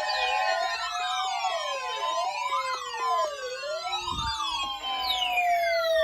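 Several sirens sounding over one another, their pitches gliding up and down about once a second. After about five seconds one set of tones glides steadily downward.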